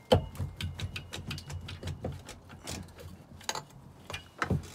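Metal clicks and knocks as the cylinder block of a Kawasaki 1100 ZXI jet ski's three-cylinder two-stroke engine is rocked and pulled up off its studs. The run is rapid and irregular, with the loudest knock right at the start and a few sharper knocks near the end.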